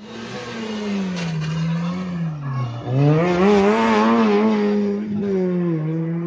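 Small hatchback rally car's engine dropping in pitch as the car brakes down for a tight hairpin. From about three seconds in it revs hard with a wavering pitch through the turn, its loudest part, then settles and picks up again as the car accelerates out.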